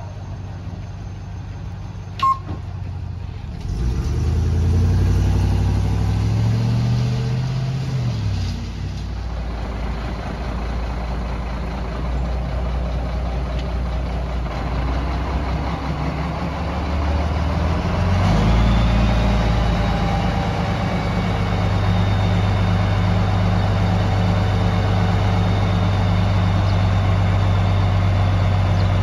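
Mack RD roll-off truck's diesel engine running, its pitch rising and falling a few seconds in, then speeding up about two-thirds of the way through and holding steady with a faint high whine as the hydraulic hoist is raised.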